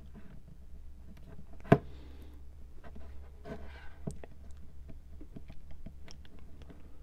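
Small flat-head screwdriver working at the plastic clips holding a Mares Genius dive computer's base plate into its bracket: scattered small plastic clicks and scrapes, with one sharp click about a second and a half in. The clips are a tight fit and have not yet let go.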